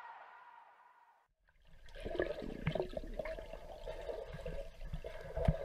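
Music fades out in the first second. After a short gap, about a second and a half in, comes muffled, irregular water sloshing and bubbling with soft knocks, heard from a camera held underwater in a swimming pool.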